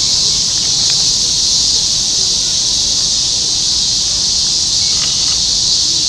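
Loud, steady chorus of insects, a continuous high-pitched shrill hum.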